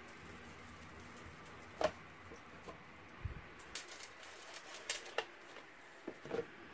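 Kraft cardstock box being handled and pressed by hand: faint rustling with scattered light ticks and scrapes, the sharpest tick about two seconds in and a cluster of them a little past the middle.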